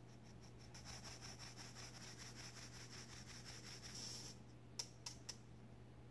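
Cake flour being shaken through a fine-mesh metal sieve: a soft, quick rhythmic rustle, about six or seven shakes a second, for about four seconds. Then three sharp taps in quick succession.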